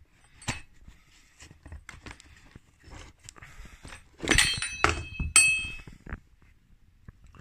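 Scattered knocks and rattles as an airbox is worked loose from a small motorcycle's frame by hand, then a louder clatter about four seconds in and a sharp metallic clink that rings briefly a second later.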